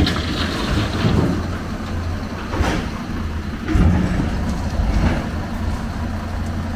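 Excavator's diesel engine running steadily with a low drone, broken by several heavy knocks and clanks of scrap metal being moved in a steel dump truck bed.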